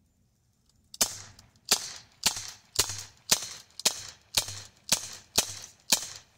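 CO2-powered Glock 19 BB pistol firing ten shots in quick succession, about two a second, starting about a second in. Each shot is a sharp crack with a short tail.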